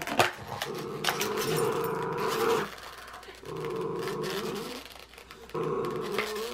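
Miniature schnauzers growling in a tug-of-war over an empty plastic water bottle: three long growls with short breaks, and a few sharp crackles of the plastic bottle.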